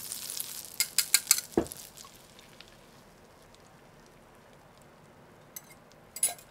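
Butter sizzling in a nonstick frying pan, fading within the first second. This is followed by a quick run of sharp clinks, one dull knock, and then only a faint sizzle.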